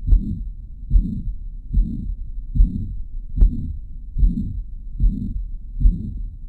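Heart sounds of mitral regurgitation heard through a stethoscope: a steady beat about 0.8 s apart, with a continuous blowing murmur that fills systole from S1 to S2.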